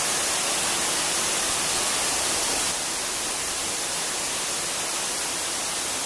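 Steady rush of a waterfall: an even hiss of falling water that drops slightly in level about halfway through.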